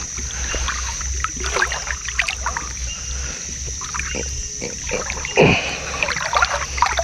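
Water splashing and dripping around a small boat as a fishing longline is handled and pulled along from the boat, with a steady high insect drone behind. One louder thump comes about five and a half seconds in.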